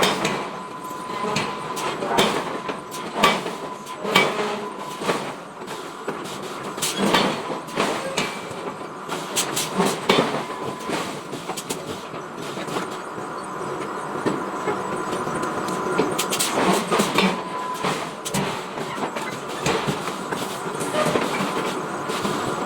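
Metal-forging shop noise: irregular clanks and knocks of iron being worked, over a steady machinery din with a faint whine.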